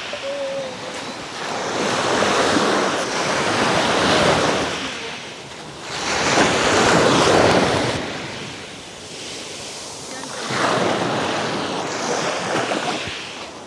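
Sea waves breaking on a pebble shore, the surf swelling and fading three times.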